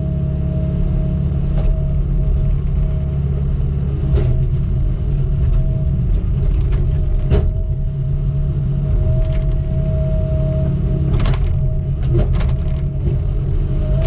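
Heavy logging machine's diesel engine running steadily under a high, steady whine, with several short knocks and clanks, the loudest about eleven and twelve seconds in.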